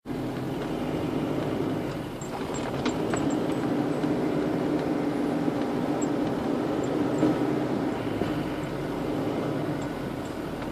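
Steady road and engine noise of a moving car, heard from inside the cabin, with a few faint small clicks.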